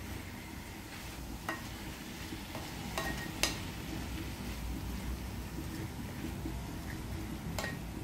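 Pork cubes and onions sizzling in a nonstick pan as a wooden spatula stirs them, with a few sharp knocks of the spatula against the pan, the loudest about three and a half seconds in.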